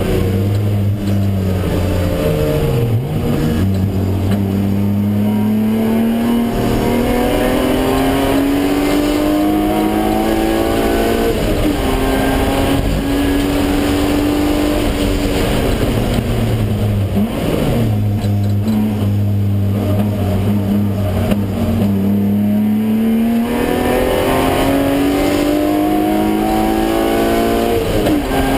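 BMW E36 M3's straight-six engine heard from inside the cabin while lapping a racetrack. Its pitch climbs slowly under load, drops sharply and recovers about three seconds in, steps down slightly about a third of the way through, then falls away a little past halfway and climbs again to the end.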